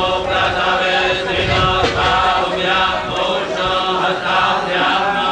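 A group of men chanting Vedic mantras together in a steady syllable-by-syllable rhythm, with no pause.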